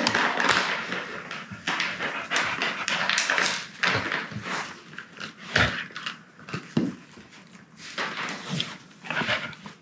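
Dog chewing a chicken-wrapped chew: irregular crunching and gnawing clicks, busiest in the first five seconds, then sparser.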